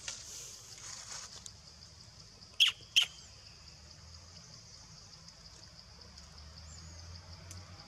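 Long-tailed macaque giving two short, sharp squeaks about half a second apart, each dropping in pitch, over a steady high insect drone.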